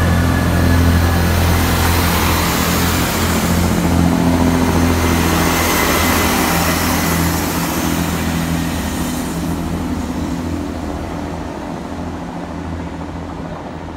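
Class 166 diesel multiple unit's underfloor diesel engines running with a steady low hum as the train pulls out of the platform, the sound fading as it draws away.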